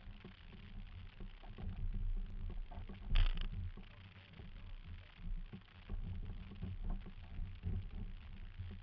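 Irregular low bumps and rumbling of a jet ski's hull being handled and rocking in shallow water, carried through the camera mounted on it, with one louder knock about three seconds in.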